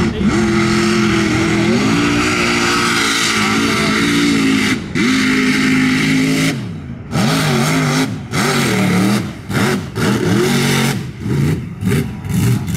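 Old Ford pickup's engine revving hard through a mud pit. It is held high and wavering for the first six seconds or so, then drops sharply and goes into a series of quick throttle stabs, rising and falling several times.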